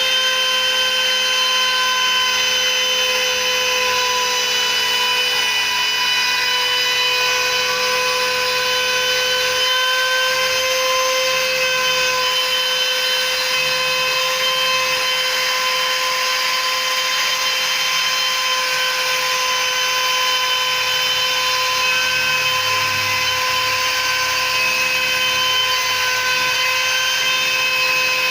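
CNC router spindle motor running with a steady high-pitched whine, with the rough noise of its bit cutting.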